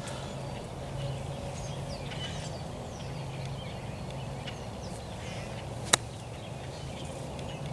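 A gap wedge striking a golf ball on a short chip shot: one sharp click about six seconds in. Birds chirp throughout in short, high, falling notes.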